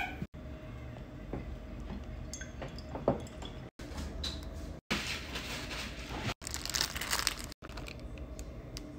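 Food-prep handling noises in short spliced bits: a single clack about three seconds in, then the plastic wrapper of an instant ramen package crinkling and the dry noodle block crunching, broken by a few instants of total silence at the cuts.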